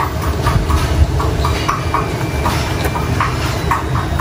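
Stove burner running loud and steady under a wok as it heats for frying, with short high chirps repeating a few times a second over the roar.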